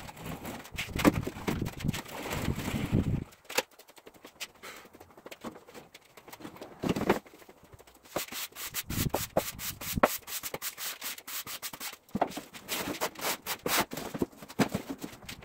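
Casters of a metal rolling tool chest rumbling over a concrete floor for about three seconds, stopping abruptly. Then a push broom sweeps the concrete in quick, repeated scratchy strokes.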